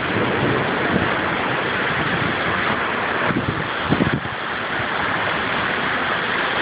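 Steady rushing noise of heavy storm rain and wind.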